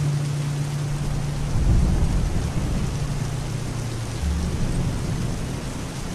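Rain falling on a moving car's windshield and roof, with a low rumble of thunder swelling about two seconds in and again briefly later.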